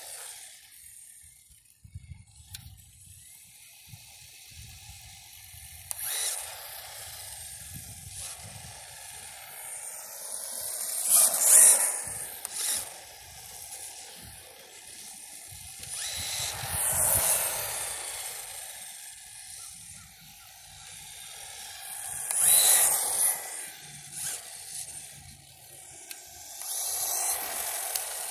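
HSP RC drift car with a 3300kv brushless motor running on asphalt: the motor's whine and the tyres' hiss swell and fade in four loud surges as the car speeds up and comes close, with a fainter steady running sound between them.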